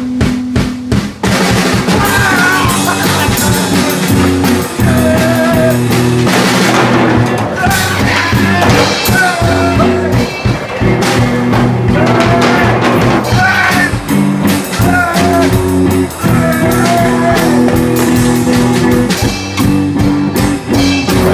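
Loud, noisy rock from electric guitar and drum kit, with dense drum hits over held low notes and a wavering higher melody line coming in and out.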